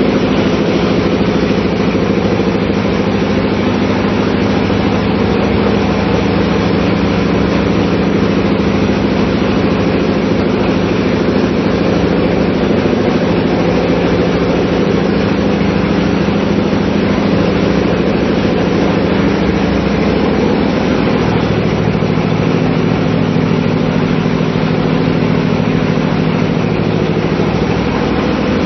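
Ship's diesel engine machinery running steadily in the engine room: a loud, even drone with a constant low hum that never changes in speed or level.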